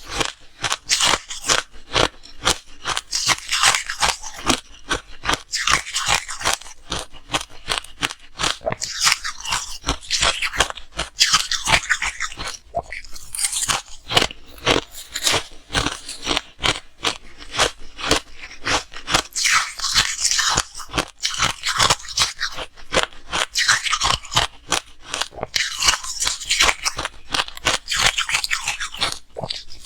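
Ice being bitten and chewed close to the microphone: a continuous run of sharp crunches in quick clusters, one bite after another.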